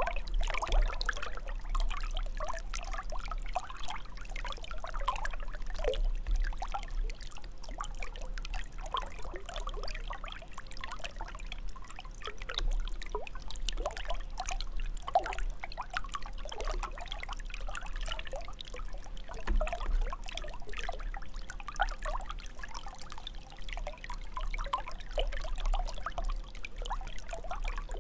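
Water trickling and bubbling continuously, with a low steady hum underneath.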